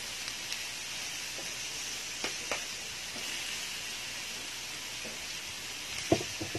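Meat sizzling on a round grill pan, a steady hiss, with a couple of light clicks about two seconds in and a sharper knock near the end.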